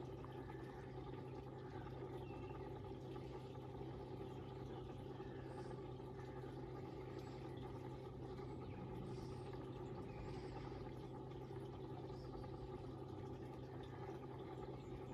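Pond pump and filtration running: a faint, steady low hum. A few faint high chirps come and go over it.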